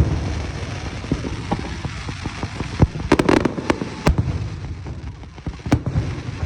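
Fireworks going off: a continuous low rumble of bursts with sharp cracks cutting through, a quick cluster of crackles a little past the middle and single loud bangs about four seconds in and near the end.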